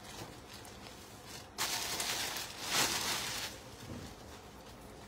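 Cloth rustling and swishing for about two seconds, starting about one and a half seconds in, as an embroidered suit fabric is unfolded and spread out.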